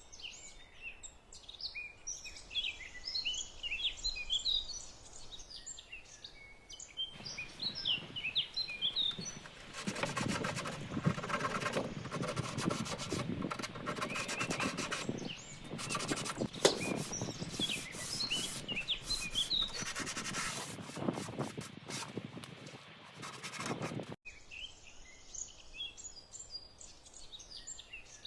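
Sandpaper rubbing over an old wooden kitchen shelf, a rough scratchy noise starting about a quarter of the way in and stopping abruptly about a second or two before the end is reached. Birds sing before the sanding starts and again after it stops.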